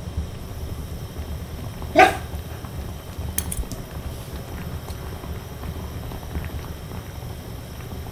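A Shiba Inu gives a single short bark about two seconds in, the loudest sound here. A few light clicks follow a moment later, over a steady low hum.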